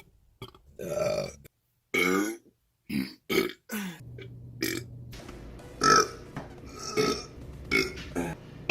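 A woman burping over and over, about ten burps in a row, some long and pitched, others short and clipped.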